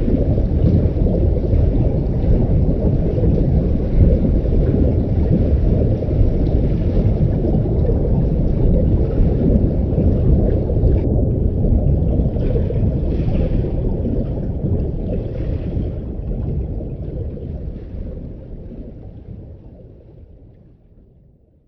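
Underwater ambience sound effect of a deep dive: a dense, muffled low rumble with little high content, fading out over the last five seconds or so.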